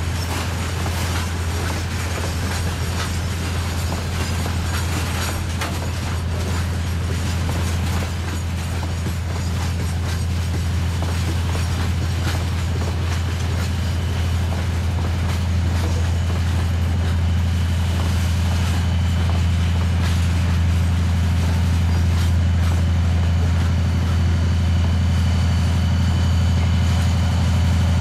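Freight wagons rolling past with wheel clatter over rail joints, over the steady low drone of the pusher locomotive's 10D100 two-stroke opposed-piston diesel working under load at the rear of the train. The engine drone grows slowly louder as the pusher approaches.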